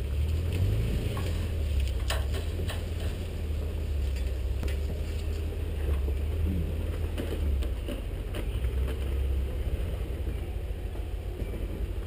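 Off-road vehicle's engine running low and steady while crawling along a rough dirt trail, with a few sharp knocks and rattles from the body over bumps.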